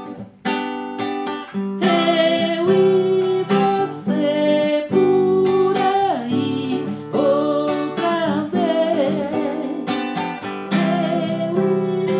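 Acoustic guitar strummed in chords while a man sings the melody over it, with long held, wavering notes, the song transposed down to G to suit his voice.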